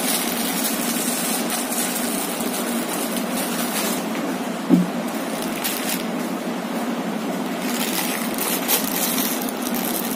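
Plastic and foil food packets crinkling and rustling as they are handled and opened, over a steady background hiss. A single short knock falls about halfway through.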